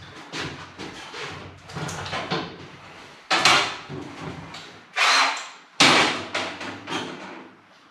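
Cordless drill-driver being handled while a pilot drill bit is fitted into its chuck: clicks and rattles, with three louder short noises each fading within about half a second.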